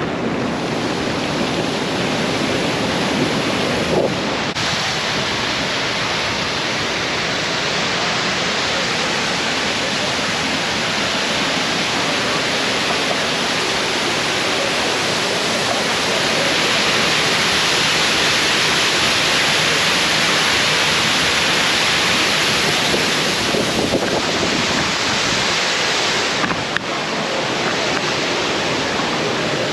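Steady rush of flowing river water, getting somewhat louder for several seconds in the middle.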